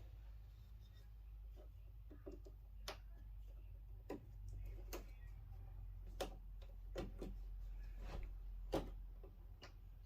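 Scattered light clicks and taps from parts of a disassembled flat-screen TV being handled, about eight in all, over a faint steady low hum.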